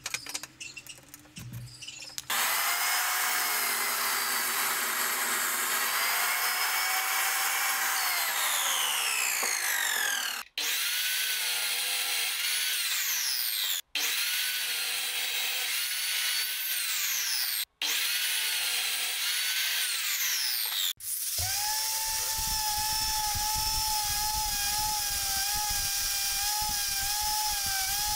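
Electric sliding compound miter saw running and cutting a wooden block, its motor whine sliding down in pitch as the blade spins down and breaking off abruptly several times. About three-quarters through, this gives way to the steady, slightly wavering whine of an angle grinder fitted with a sanding disc, sanding the wood block.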